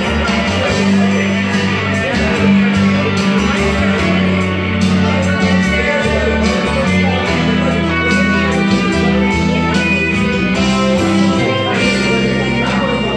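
Live band playing an instrumental break, electric guitar and keyboard, with no lead vocal.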